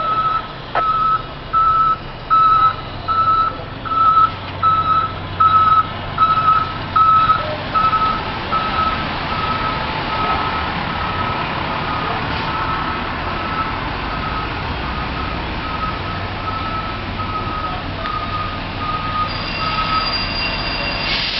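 A fire engine's reversing alarm beeps steadily, about once every three-quarters of a second, as the rig backs up over the running of its diesel engine. The beeps grow fainter after about eight seconds.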